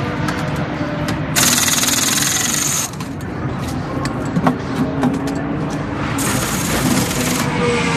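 Pneumatic wheel guns rattling during a race-car pit stop: two bursts of a harsh, rapid buzz, about a second and a half in and again near the end, with a few sharp knocks between them. Race car engines run underneath.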